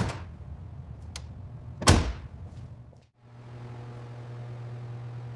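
Over a low rumble, a sharp knock and then a loud slam-like thump about two seconds in. After a brief break the sound gives way to a steady low hum.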